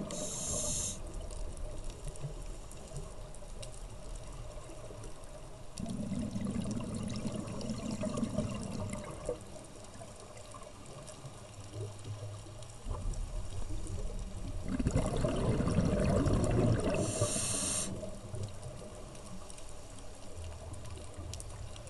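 Underwater scuba breathing: the regulator hisses briefly on an inhale at the start and again about three-quarters through, with bubbly, rushing exhalations between, over a steady low underwater background.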